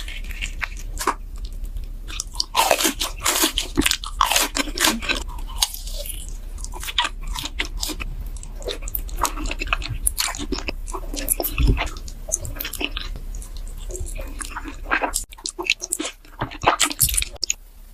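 Close-miked eating: crunchy bites and chewing, a quick irregular series of sharp crunches.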